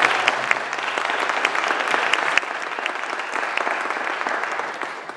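Audience applauding, many hands clapping steadily, fading out near the end.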